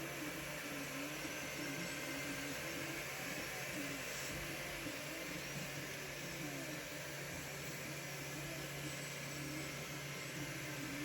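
3D printer's stepper motors whining as the print head moves, the pitch sliding up and down with each change of speed and direction, over a steady fan hum and hiss.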